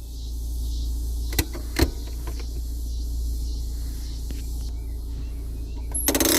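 Fiat Uno handbrake lever: two single clicks about a second and a half in, then near the end a rapid run of ratchet clicks as the lever is pulled up. A steady low rumble lies under it.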